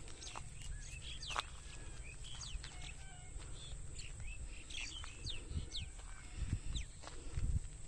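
Outdoor ambience of wild birds giving scattered short, sharp chirps that fall quickly in pitch, over a low wind rumble on the microphone that gusts louder near the end.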